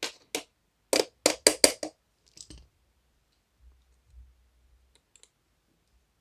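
Exhaust fan housing parts clicking and knocking as the front cover is fitted on: about six sharp clicks in the first two seconds, then a few faint taps.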